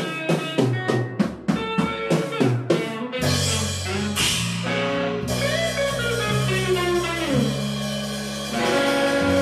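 Blues band playing the ending of a slow blues. A guitar plays a quick run of single notes, about four a second, then a bit over three seconds in the band lands on a held final chord with bass and drums, with cymbal crashes ringing over it.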